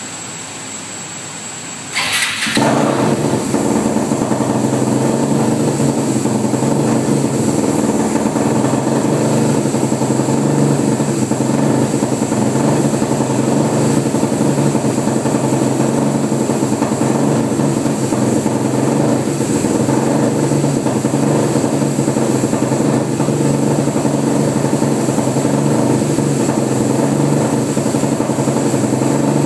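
Suzuki LT-R450 single-cylinder four-stroke engine on a dynamometer, starting up with a sudden loud burst about two seconds in, then running loudly at a steady speed.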